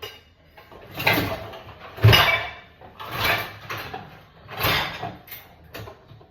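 Dishwasher being loaded: about half a dozen short sliding, knocking sounds of dishes and racks being handled, the loudest about two seconds in.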